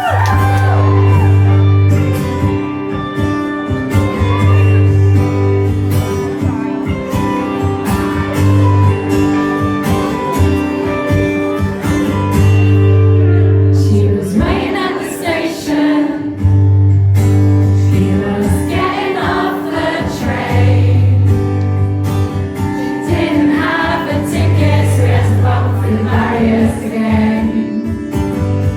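Live band music with steady low bass notes, and wavering singing voices coming in from about halfway through.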